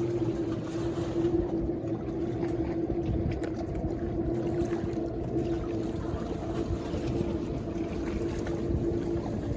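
A boat engine running steadily, a constant drone with a low rumble, mixed with wind noise.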